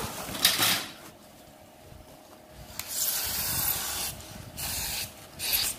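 Spray can hissing in a steady burst of about a second and a half, then a shorter second burst. Brief scraping and rustling on the foam panel come before it.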